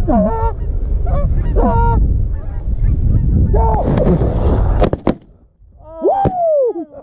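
Canada geese honking in flight: a few separate drawn-out honks over a heavy low rumble of wind on the microphone. About five seconds in there are a couple of sharp cracks, the rumble cuts out, and one more falling honk follows.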